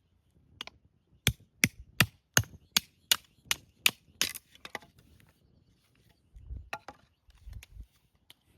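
A tool chopping into wood with a quick run of about nine sharp strokes, roughly three a second, then a few scattered lighter knocks and two dull thuds near the end.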